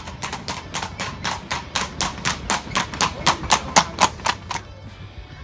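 Horse hooves clip-clopping on brick paving as a horse-drawn carriage passes, a regular beat of about four strikes a second that stops about four and a half seconds in.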